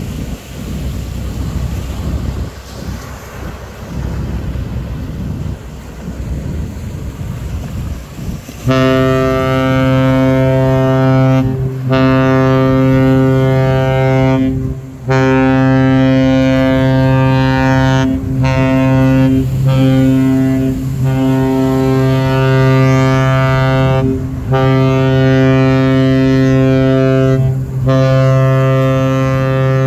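Wind and surf on the beach, then, about nine seconds in, the Caribbean Princess cruise ship's horn sounds loudly in a series of long, steady blasts of one deep pitch, separated by brief breaks, as the ship leaves port.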